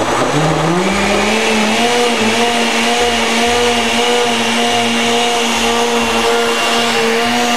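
Countertop blender switched on, its motor spinning up with a rising pitch over the first second and a half, then running steadily as it blends a watery tomato, yuca and mint mixture.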